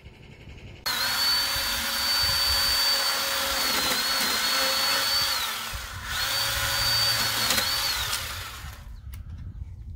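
Battery-powered pole saw cutting crepe myrtle limbs, its motor running in two runs, a long one and then a shorter one, each with a steady high whine that falls away as the trigger is released.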